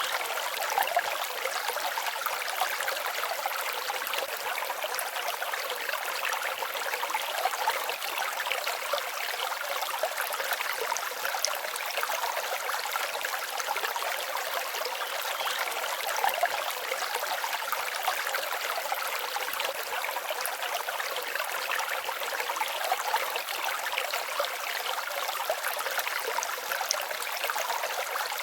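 Forest stream babbling and trickling steadily over its bed, with many small splashes and gurgles through a light, even rush that has almost no deep rumble.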